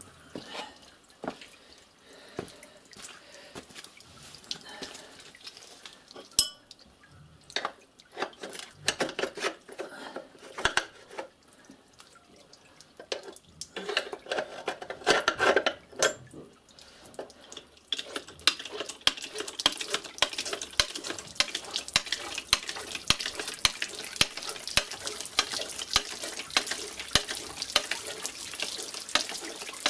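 Water dripping and running out of wet paper pulp being squeezed in a metal briquette press, with scattered knocks from handling the press. About two-thirds of the way through, a fast, steady patter of drips sets in.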